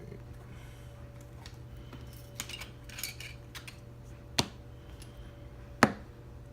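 Small metal parts of a lock and lockpicking tools being handled: light clinks and rattles, then two sharp metallic clicks about a second and a half apart, the second the loudest.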